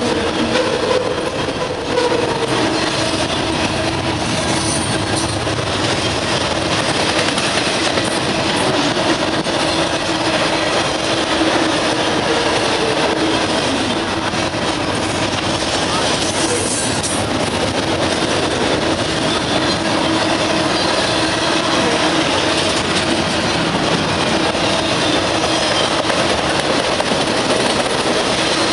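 Double-stack intermodal freight cars rolling past at speed: a steady, loud rumble and clatter of steel wheels on the rails, with occasional wheel squeal.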